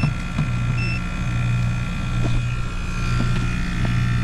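American Standard package air-conditioning unit running with its compressor on: a low steady hum that pulses at regular intervals, with a few faint light taps.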